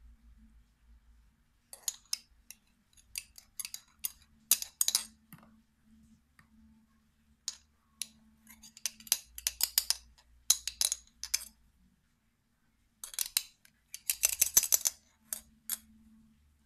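Metal spoon clinking and scraping against a glass jar and a plastic tub while shredded pickled papaya is scooped into the jar. The sound comes in three bursts of rapid clicks with short pauses between them.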